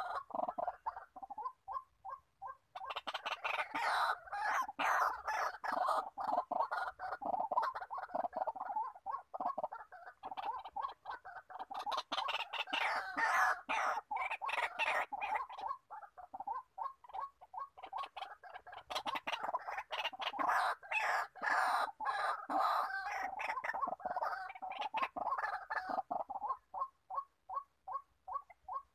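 White-breasted waterhen calling: a fast, even series of short croaks at about five a second that breaks about three seconds in into a long, loud spell of dense, harsh calling, then settles back into the even series of croaks near the end.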